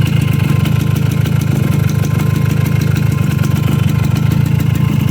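Suzuki AX100's small two-stroke single-cylinder engine running steadily, held a little above idle so it does not stall. Its front crankshaft sprocket has just been refitted with the key that was missing, the cause of the earlier knocking at full throttle.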